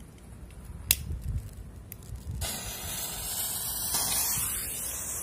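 Two sharp clicks, then about two and a half seconds in a steady hiss starts abruptly: the lit fuse of a handheld smoke-ball firework burning.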